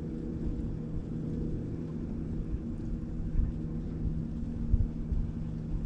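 A steady low motor hum with a few level tones over a low rumble, broken by a couple of brief low thumps in the second half.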